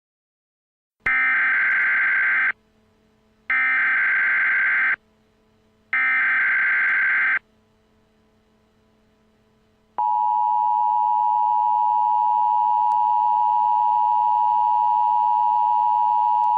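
Emergency Alert System transmission: three identical bursts of warbling digital data tone (the SAME header), each about a second and a half long with a second's gap between them. After a short pause, the steady two-tone EAS attention signal starts and holds.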